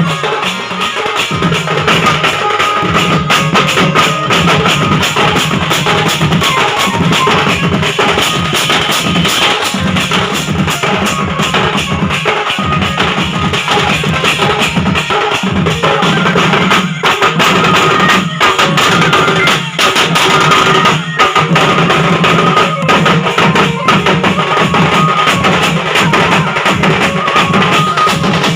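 Loud live band music from a village sound band: heavy, dense drumming with a sustained melody line carried over it.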